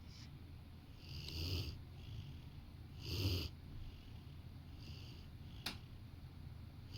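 A sleeping Rottweiler snoring: two snoring breaths, the second louder, at about one and three seconds in, then a softer one. A single sharp click comes toward the end.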